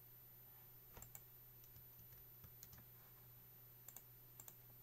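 Computer mouse buttons clicking: a handful of short sharp clicks, several in quick pairs, over a faint steady low hum.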